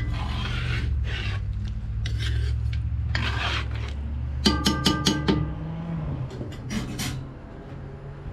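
A metal utensil scrapes and stirs through pieces of smothered rabbit in gravy in a black pot, in several rasping strokes. Around the middle come about five quick, ringing clinks of metal against the pot. A low steady hum underneath stops about five and a half seconds in.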